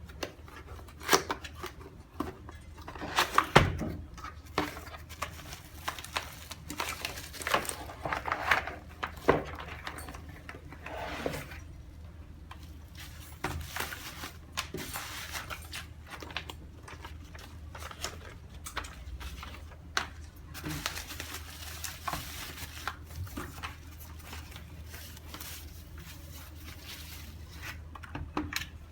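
Irregular clicks, knocks and rustling from a mechanical keyboard and its packaging being handled, over a steady low hum.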